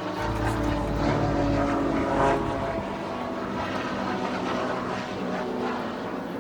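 Pressure washer's petrol engine running steadily with the hiss of the spray, louder for the first two seconds.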